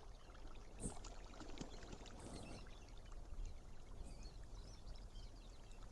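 Faint water ambience, a soft pouring or lapping wash, with a few small high chirps and ticks over it.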